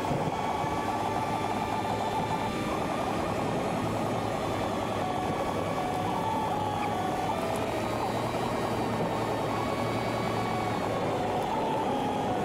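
Steady engine drone with a low hum and a faint wavering whine, unchanging throughout.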